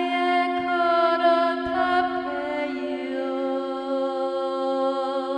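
A voice chanting Light Language in long held notes that step down in pitch, over a steady low two-tone drone.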